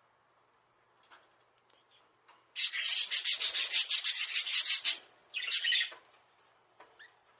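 Rapid rasping scratches right at the microphone: fast strokes for about two and a half seconds, then a shorter burst half a second later, from a budgerigar scraping at something close to the camera.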